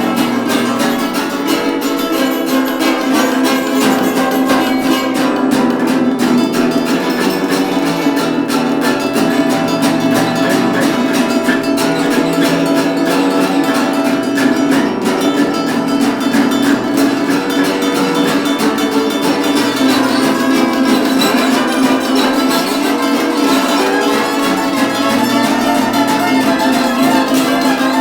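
Acoustic blues band playing an instrumental passage: plucked acoustic guitar and ukulele over acoustic bass, steady and even in loudness throughout.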